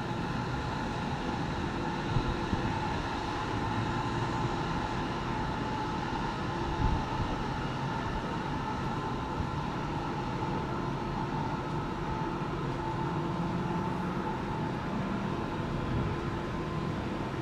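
Steady urban background noise: a low rumble with a steady mechanical hum of several tones.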